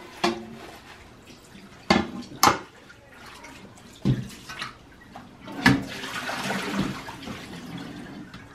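Leafy greens being washed in a stainless-steel bowl at a sink: a handful of sharp metal knocks as the plate and bowl strike each other and the sink, then water splashing for about two seconds near the end.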